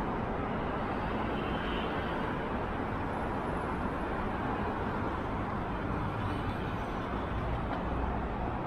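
Steady hum of road traffic, even and unbroken, with no separate events standing out.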